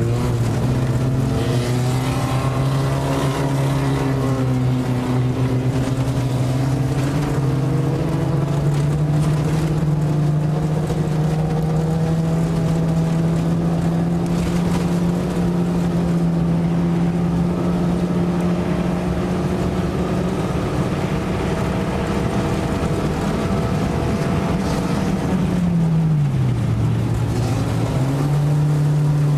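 Race car engine running hard, heard from inside the car, its pitch climbing slowly for a long stretch, then dropping sharply and coming back up near the end.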